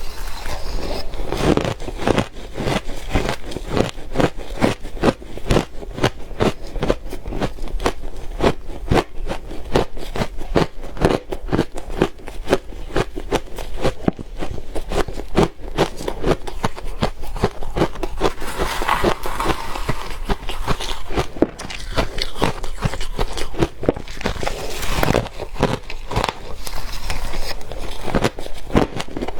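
Soft frozen ice, crushed and shaved, crunching as it is bitten and chewed close to the microphone: a steady run of crunches, several a second.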